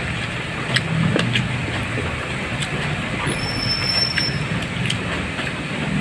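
Eating noises: sharp clicks and smacks of chewing over a steady rushing background noise, with a thin high tone lasting about a second a little past three seconds in.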